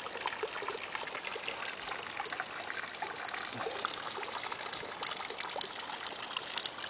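Rainwater overflow from a roof collection system pouring out of a white plastic pipe and splashing into a water-filled plastic wading pool: a steady trickling splash.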